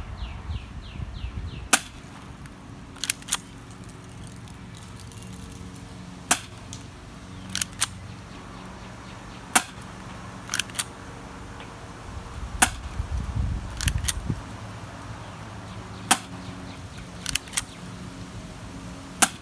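Crosman Stinger P311 spring airsoft pistol being fired: a sharp snap about every three seconds, six in all. Between the shots come quieter clicks in pairs.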